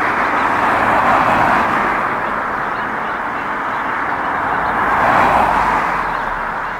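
Road traffic passing: tyre noise from cars going by, swelling as one passes about a second in and again as another passes about five seconds in.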